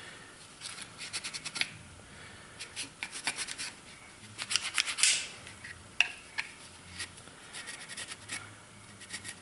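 A brush scrubbing the polymer frame of a Glock 30 pistol in quick bursts of short strokes, loudest about five seconds in, with a single sharp tick about a second later.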